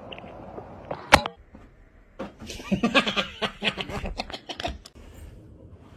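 A single sharp thump about a second in, then hard laughing in rapid bursts for about two and a half seconds.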